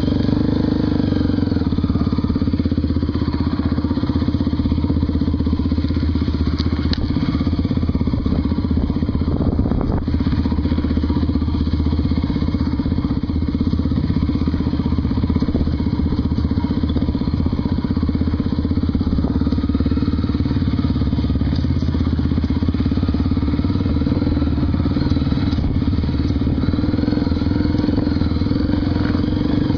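Honda XR250 Tornado's 250 cc single-cylinder four-stroke engine running steadily, with little change in revs.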